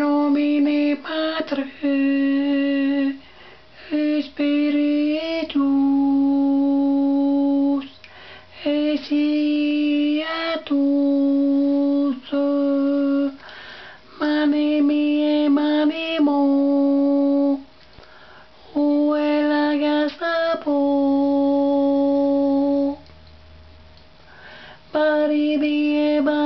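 A voice singing a tune in repeated phrases, each ending on a long held note, with short breaks between phrases.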